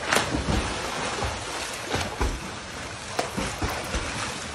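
A large dog jumps into a swimming pool with a loud splash right at the start. Pool water then keeps splashing and sloshing, with several sharper splashes as a dog thrashes in the water.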